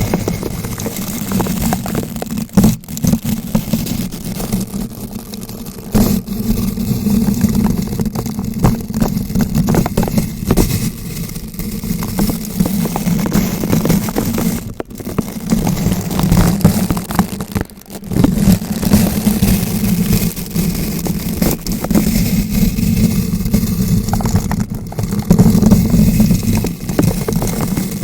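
Bristle brush rubbed and turned directly against a bare microphone: continuous scratching and crackling over a deep rumble, with short breaks about 3, 15 and 18 seconds in.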